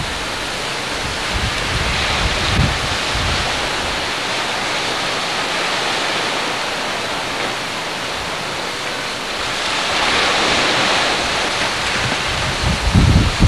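Surf breaking and washing over the shoreline, a steady hiss that swells louder about ten seconds in. Wind buffets the camcorder microphone in low rumbling gusts, briefly a couple of seconds in and again near the end.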